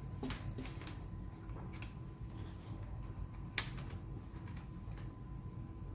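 Scattered light clicks and taps of small parts and tools being handled on a workbench, the sharpest about three and a half seconds in, over a steady low hum and a faint steady whine.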